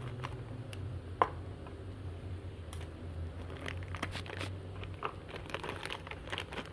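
A blind bag being torn open and crinkled by hand, with scattered crackles and one sharp snap about a second in.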